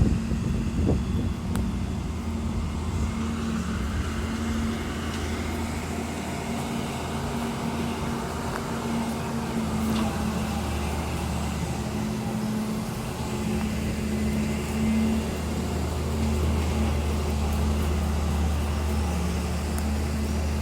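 Engine of heavy road-works machinery running steadily at a constant pitch, with a few faint clicks over it.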